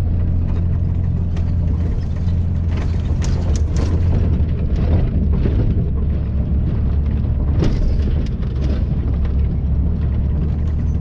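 Lorry's diesel engine running steadily at low revs, heard from inside the cab, with scattered knocks and rattles from the cab as it drives over the field.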